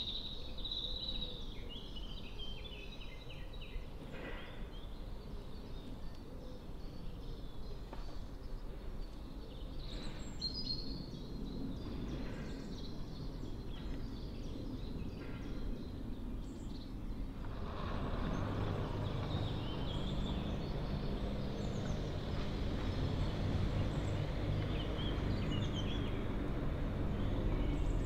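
Birds chirping over outdoor ambience, then from about two-thirds of the way through an approaching diesel locomotive's engine hum comes in low and grows steadily louder.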